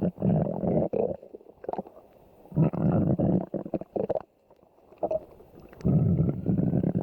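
A person's stomach growling: gurgling rumbles in three bouts, each about a second or more long, with short quiet gaps between.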